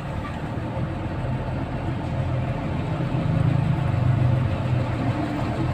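Engines of lorries and cars in slow, stop-and-go traffic: a steady low engine hum that swells louder from about three to four and a half seconds in as the heavy vehicles creep forward.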